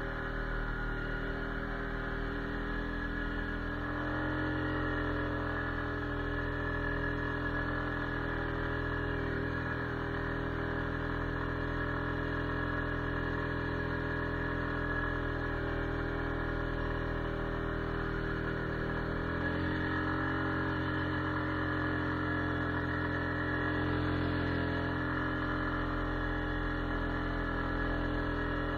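ATV engine running steadily as it drives through snow, heard as a continuous droning hum that shifts slightly in pitch about four seconds in and again near twenty seconds in.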